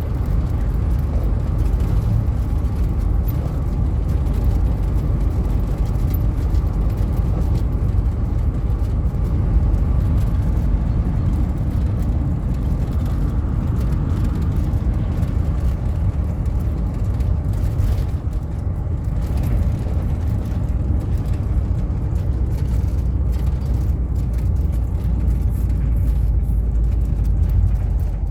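Steady low rumble of a car driving, with engine and road noise.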